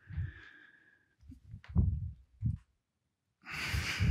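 A man's forceful breath out as he swings his arms down into a deep knee bend in a woodchopper bounce, coming near the end; before it, a few short soft low sounds of breathing and body movement.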